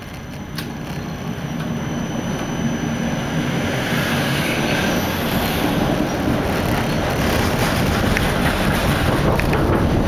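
ULF type B low-floor tram, heard from inside, gathering speed. The running noise of wheels on rails grows louder over the first four seconds and then holds steady, with a thin high whine over it.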